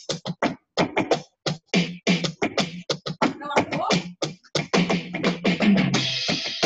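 Drum kit played in a quick, busy beat of drum and cymbal strikes, several hits a second, heard through the compressed, narrow audio of a video call.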